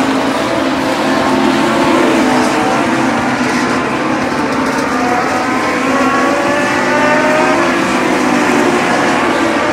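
A pack of Legends race cars racing past, their Yamaha 1200 cc motorcycle engines running hard as several overlapping engine notes rise and fall.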